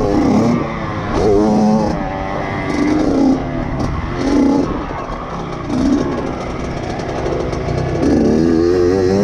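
Dirt bike engine revving up and backing off again and again as the throttle is opened and closed over the jumps, its pitch climbing with each burst, with a strong rev near the end.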